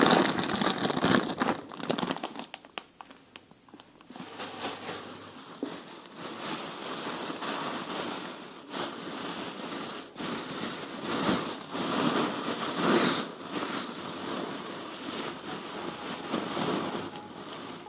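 Clear plastic food bags crinkling and rustling as they are handled and gathered shut, with a few sharp clicks.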